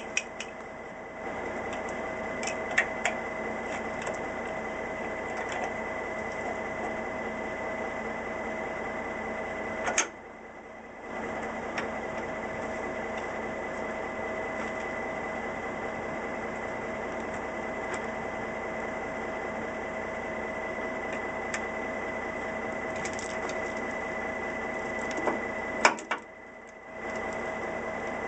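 Steady mechanical hum of the idling dump truck, with a few sharp metallic clicks and clanks as trailer hose couplings and safety chains are handled. The hum cuts out briefly twice.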